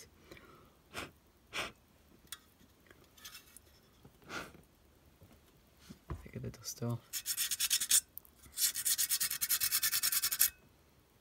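Abrasive paper rubbed by hand over the tin-plate body of a clockwork O gauge locomotive: a few light knocks at first, then from about seven seconds in quick back-and-forth rasping strokes in two runs, stripping old paint.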